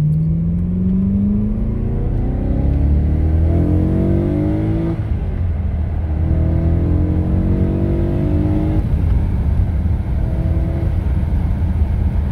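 2009 BMW E92 M3's S65 V8 with an Eisenmann cat-back exhaust, heard from inside the cabin, accelerating through the gears. The revs climb steadily, fall at quick dual-clutch upshifts about five and nine seconds in, and climb again after each shift.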